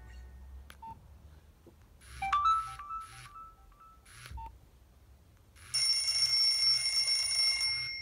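Nokia 2720 fold phone previewing its built-in alert tones while its menu is scrolled: a short key beep about a second in, a brief phrase of pitched chime notes about two seconds in, another short beep, then a loud, steady, buzzy electronic alert tone from a little before six seconds on.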